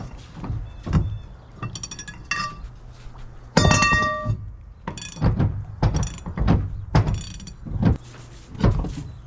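Steel cheater pipe and wrench clanking against a hydraulic cylinder's fittings as the pipe is swung back and forth, with about a dozen separate knocks. The loudest is a long ringing clang of steel about three and a half seconds in. The stubborn fitting has just broken loose.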